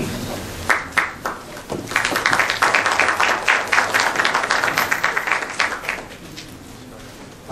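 Audience applauding: a few scattered claps about a second in, then steady clapping that dies away about six seconds in.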